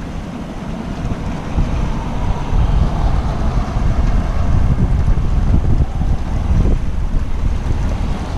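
Storm wind buffeting the microphone: a loud, uneven low rumble with a rushing hiss that swells and eases in gusts.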